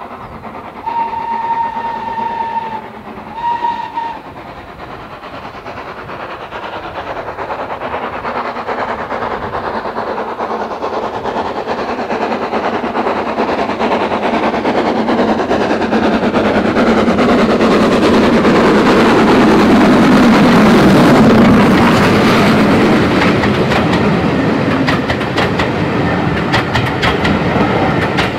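Steam locomotive LSWR S15 No. 506, a two-cylinder 4-6-0, sounds its whistle twice, a long blast then a short one, then its exhaust and running gear grow steadily louder as it approaches and passes close by, loudest about two-thirds of the way through. Its coaches then roll past with the clickety-clack of wheels over rail joints.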